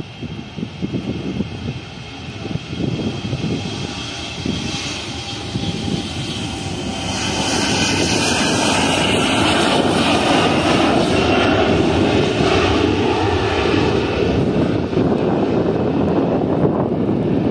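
Airliner's engines growing louder over the first several seconds as the plane passes close, then a steady loud rumble with a faint high whine on top.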